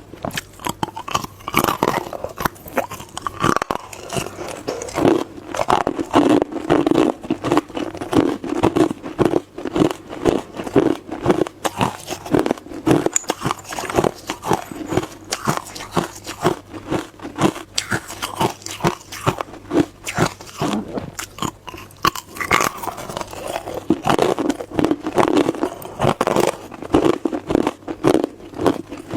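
A person biting and chewing hard, clear ice: a continuous, dense run of crunches and cracks as the ice shatters between the teeth.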